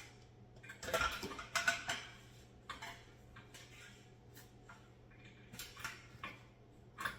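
Irregular light metal clinks and clanks, in small clusters, from the sheet-metal panels and screws of a metal raised garden bed being handled and fastened together.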